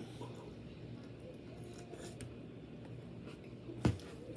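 Soft chewing and mouth noises of someone eating, with scattered small crunchy clicks and a short low vocal sound near the end.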